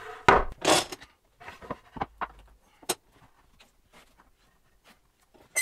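A wooden board being slid and shifted across a wooden workbench: two loud scrapes within the first second, then scattered light knocks and clicks as the wood is set in place.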